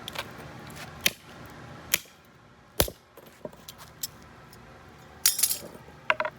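A broken metal door lock being smashed apart: separate sharp metallic hits about a second apart, the heaviest one near three seconds in with a dull thud, then bursts of jangling, clinking metal parts near the end.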